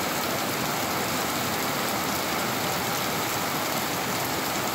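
Steady rain falling on a wet concrete street and garden plants, an even hiss with no breaks.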